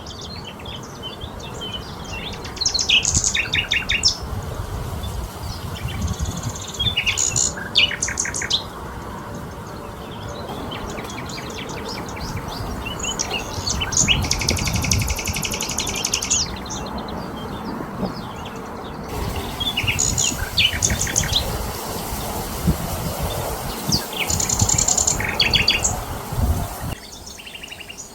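Several songbirds chirping and singing in short, repeated phrases, including a fast rattling trill about halfway through, over a steady outdoor background hiss.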